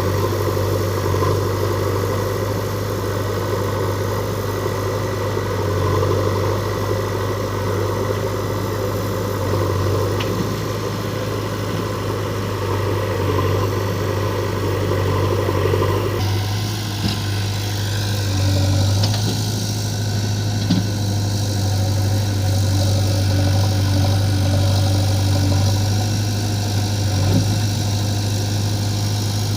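Heavy diesel engine running steadily at idle, a constant low drone, as a backhoe loader and tractor stand at work loading stone. The sound changes abruptly about halfway through, with a few light knocks near the end.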